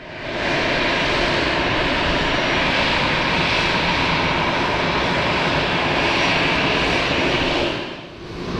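Jet airliner's engines running loud and steady on landing, with a faint high whine over the noise. The sound drops away sharply about eight seconds in, and similar engine noise comes back just after.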